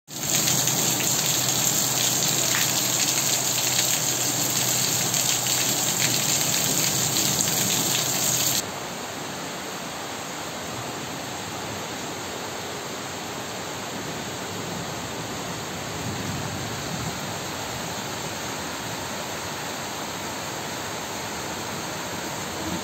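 Heavy rain pelting a wet paved surface and puddles: a dense hiss with fine drop splashes. About eight seconds in it cuts abruptly to a quieter, steady rain hiss.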